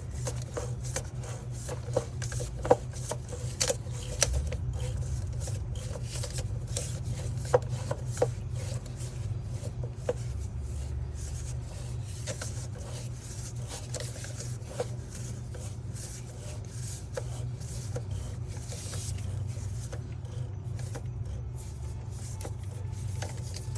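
Filter wrench scraping and clicking against a spin-on diesel fuel filter canister as it is tightened down by hand, in scattered strokes over a steady low hum.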